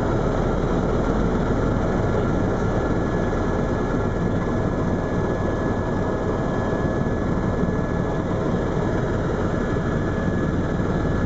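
Steady cabin noise of a Eurocopter EC130 EcoStar tour helicopter in flight: the dense rush of rotor and turbine with a thin steady high whine running through it.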